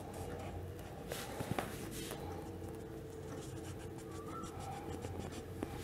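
Whiteboard marker drawing short dashed lines on a whiteboard: faint, brief scratchy strokes over a steady low hum.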